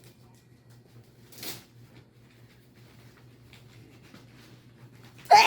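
Quiet room with a steady low electrical hum and a faint breath about a second and a half in, then one sudden loud sneeze near the end.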